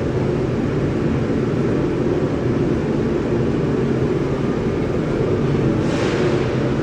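Steady, loud industrial rumble of steel-plant machinery, with a brief hiss about six seconds in.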